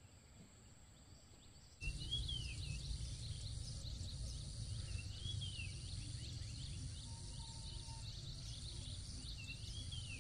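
Outdoor countryside ambience that cuts in abruptly about two seconds in: insects drone steadily at a high pitch while a bird repeats a short rising-and-falling call three times, over a low rumble.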